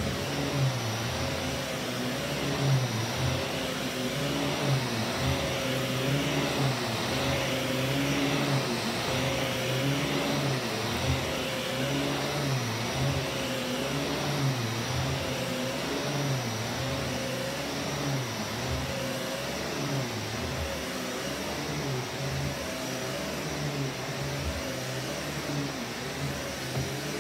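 Vax Commercial VCU-03C upright vacuum cleaner running on carpet. Its motor hum wavers in pitch in a regular rhythm as it is pushed back and forth.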